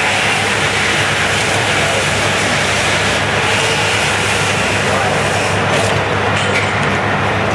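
Three-side-sealing powder sachet packaging machine running: a steady mechanical hum under a loud hiss, with a few light clicks about six seconds in.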